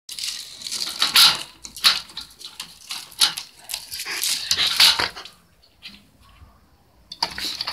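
A dog moving about on gravel on its leash: irregular crunches and scuffs, then quieter for the last two seconds or so.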